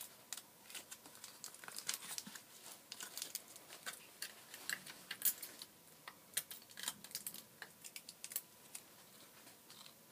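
Cardboard and sticky tape being handled: irregular faint clicks, crackles and rustles as tape is pressed onto and around a folded cardboard box shape, coming in short runs with brief pauses.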